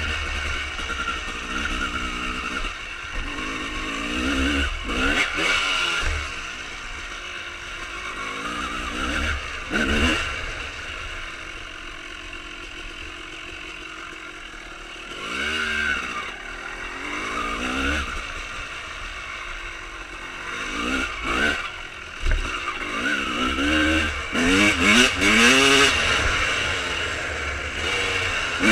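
1995 Honda CR250R's two-stroke single-cylinder engine, breathing through a full Pro Circuit exhaust, revving up and down as the bike is ridden over rough ground. It eases back to a lower, steadier note around the middle, then is opened up hard again in sharp rising revs near the end.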